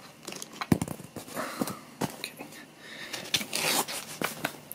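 Small clicks and scrapes of hands working a rifle's stock nut loose and lifting it off the wooden stock, with a brief rustle about three and a half seconds in.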